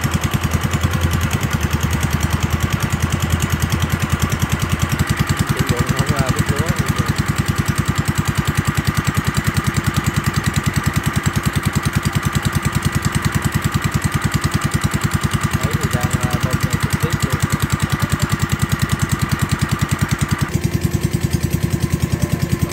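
Engine of a tracked rice-field machine running steadily with a fast, even beat. Its tone shifts abruptly about twenty seconds in.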